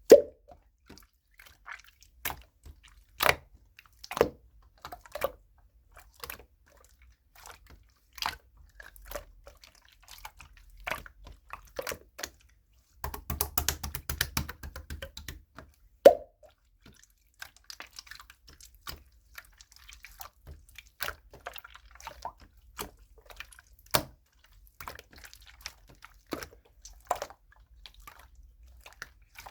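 Slime being squished and pressed by hand, making wet clicks and small popping sounds at irregular intervals, with a denser stretch of crackling a little before halfway and a few louder pops.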